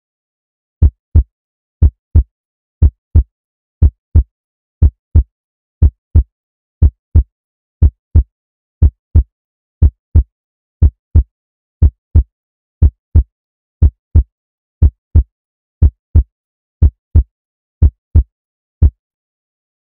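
Heartbeat sound effect: a deep lub-dub double thump repeating steadily about once a second, with dead silence between the beats.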